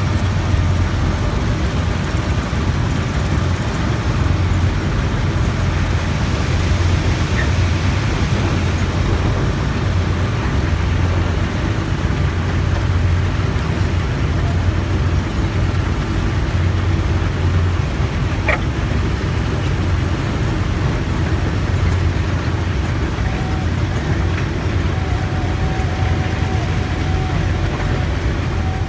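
Plasser & Theurer PM1000-URM track ballast renewal machine working: a steady, heavy low engine drone under a constant mechanical rumble from its conveyors and excavating gear, with a single sharp clank about two-thirds of the way through.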